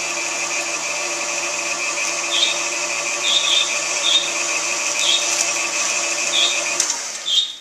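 KitchenAid stand mixer running its meat grinder attachment, likely on speed four, grinding pork: a steady motor hum with short high squeaks every second or so. The motor stops shortly before the end.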